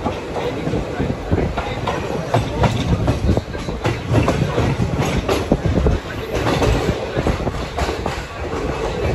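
Express train coaches rolling past on the track: a continuous rumble of wheels on rail, broken by many sharp clacks as the wheels cross rail joints.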